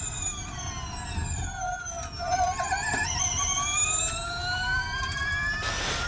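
Onboard sound of a Gen2 Formula E car's electric motor and transmission whining: the pitch falls for about three seconds as the car slows, then rises again as it accelerates, over steady tyre and road rumble.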